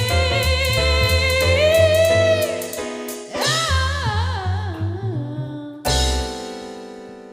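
Music with a singer holding long, wavering notes over a steady beat and bass; a last bass hit just before the end lets a held chord ring and fade.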